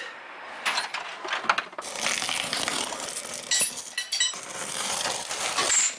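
Light metallic clinking and clattering: several sharp clinks, some with a brief ringing tone, in two clusters about a second in and around the four-second mark.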